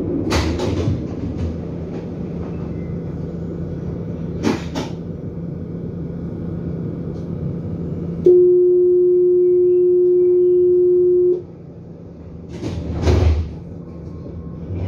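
Tram standing at a stop with a steady low hum from its equipment and a couple of sharp clicks. About eight seconds in, the door-closing warning sounds as one loud steady beep lasting about three seconds, followed about two seconds later by a thud as the doors shut.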